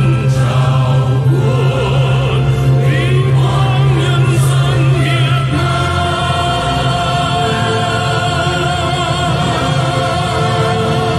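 Male solo singer with choir and orchestra performing a Vietnamese patriotic song; from about six seconds in the voices and orchestra hold one long sustained chord.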